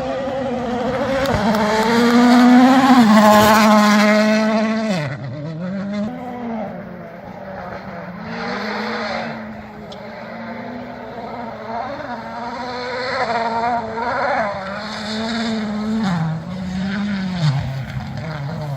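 Rally car engine at full throttle, loudest about three seconds in as it passes, its note dropping sharply soon after. It then keeps rising and falling with gear changes and lifts of the throttle as it drives on along the stage.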